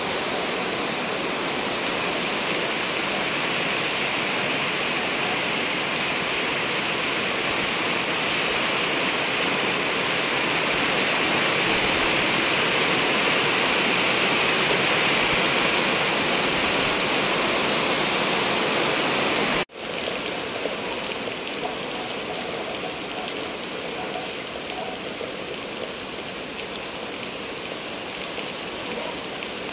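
Steady rain falling and pattering on a hard surface. It cuts out for an instant about two-thirds of the way through, then continues a little quieter.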